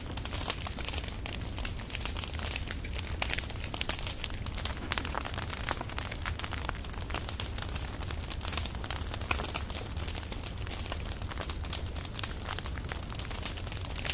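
Burning firewood crackling steadily, with a dense run of small pops and snaps over a low steady rumble.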